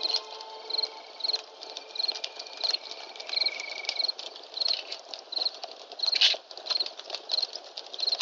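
Campfire crackling and popping, with one louder pop about six seconds in, over crickets chirping steadily a little under twice a second.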